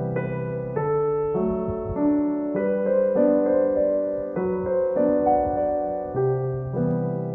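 Background music: a calm piano piece, notes and chords changing about every half second to a second.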